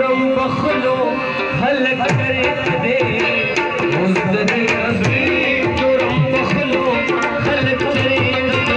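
Tabla played in a quick, busy rhythm, the bass drum's pitch sliding up and down under the sharp strokes, with a harmonium playing a melody over held notes.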